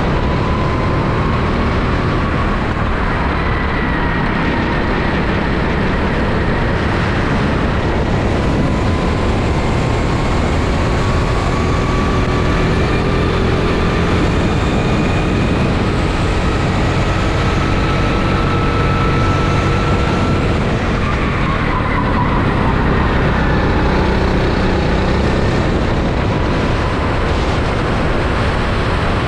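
Onboard sound of a rental go-kart's engine running hard under the rider, its pitch slowly climbing with speed, dropping sharply about two-thirds of the way through as the kart slows for a corner, then climbing again, over steady wind and tyre noise.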